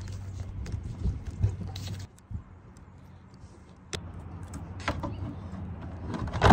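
Scattered clicks and knocks of plastic parts as a MaxxAir roof fan's housing and lid are handled and set in place, over a low steady hum; a louder knock comes right at the end.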